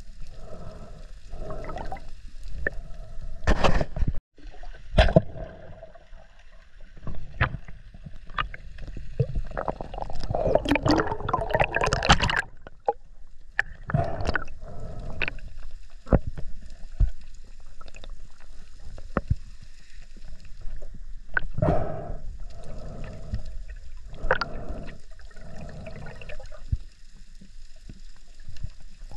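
Water gurgling and sloshing around an underwater camera as a spearfisher swims, in repeated swells. There are a few sharp knocks about four seconds in, and a burst of heavier splashing around ten to twelve seconds in.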